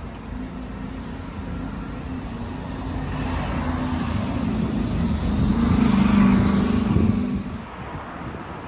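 A small hatchback car driving past close by: its engine hum and tyre noise swell over a few seconds, peak about six seconds in, then fall away quickly.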